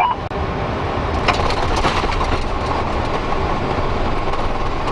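Boeing 747 landing rollout heard from the cockpit: a steady rumble of wheels on the runway and engine noise, with a few faint knocks as the aircraft slows and turns off.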